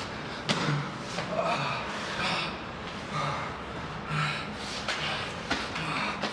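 Men grunting and gasping hard during a hand-to-hand struggle, about one strained breath a second, with a few sharp hits.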